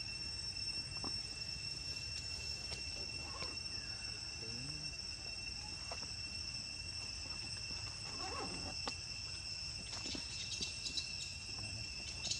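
Steady chorus of insects, two even high-pitched drones held throughout, with scattered faint clicks and rustles.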